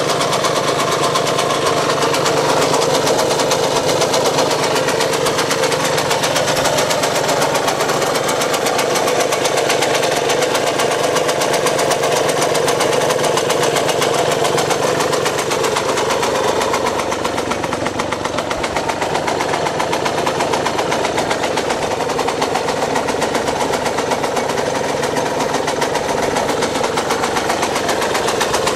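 Yamaha DTR 125 SM's single-cylinder two-stroke engine running steadily, fast and evenly pulsing, easing back slightly about two-thirds of the way through.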